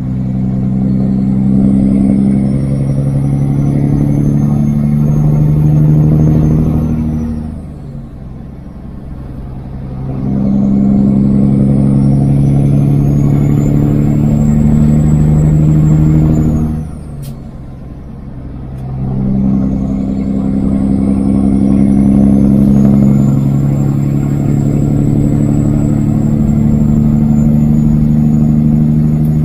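Kenworth W900 semi truck's diesel engine pulling hard as it accelerates up through the gears, with a high whine that rises with the engine in each gear. The engine drops away twice for a gear shift and then pulls again.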